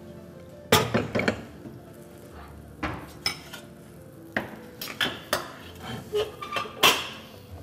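Dishes, cookware and cutlery being handled on a kitchen counter and stove: a string of separate knocks and clinks, the loudest about a second in and near the end.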